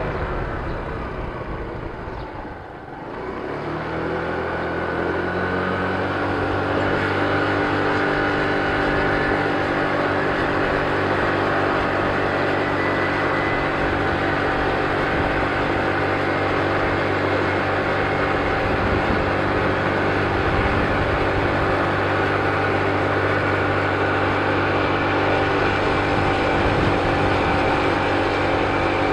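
Kymco scooter engine while riding, under a steady rushing noise. It eases off near the start, picks up again over the next few seconds, then holds a steady cruising drone.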